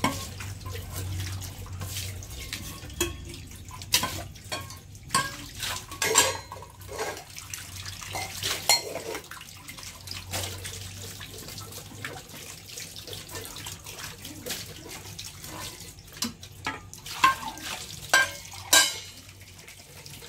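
Tap water running over stainless steel vessels as they are rinsed by hand, with repeated sharp clinks and clanks of steel utensils knocking together in the sink, several of the loudest near the end.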